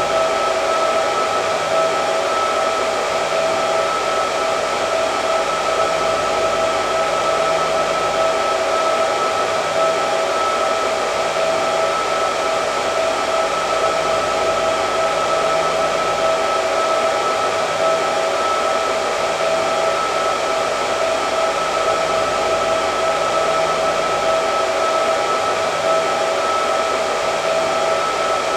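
Hair dryer running steadily: a rush of air with a constant whine from its motor, unchanging throughout.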